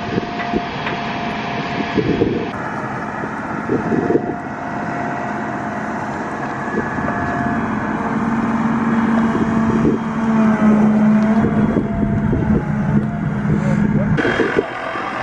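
Excavator's diesel engine running, with shovels knocking and scraping in wet soil. A steady low drone comes in about halfway through and stops shortly before the end.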